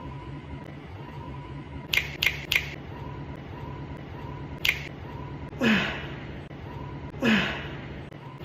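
A person's strength-training exertion noises: three quick sharp hissing exhales, another a couple of seconds later, then two strained grunts that fall in pitch.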